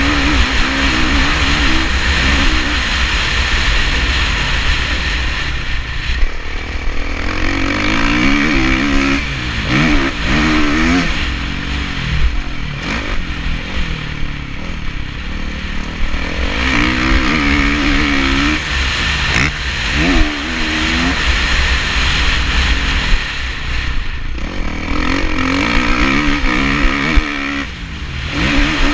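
Kawasaki KX450F four-stroke single-cylinder motocross engine revving hard, its pitch climbing and dropping again and again as the rider opens the throttle, shifts and backs off into corners. Heavy wind buffeting on the helmet-mounted microphone.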